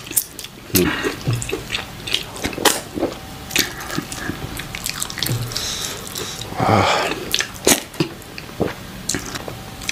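Close-up wet eating sounds from hand-eating fufu and chicken pepper soup: fingers squishing soft fufu through the soup, with lip smacks and chewing as many short wet clicks, and one longer slurp about two-thirds of the way through.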